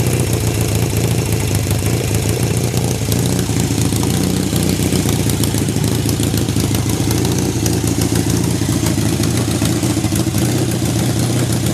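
Kawasaki Z750 (KZ750B) air-cooled parallel-twin engine idling steadily, with an even rhythm and no knocks or rattles standing out; the seller reports the idle as stable with no abnormal noise.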